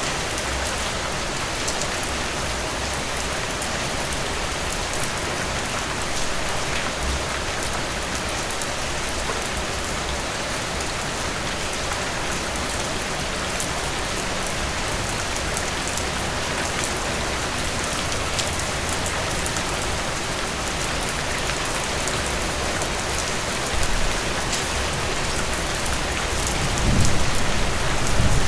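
Heavy rain falling steadily. A low rumble of thunder swells near the end.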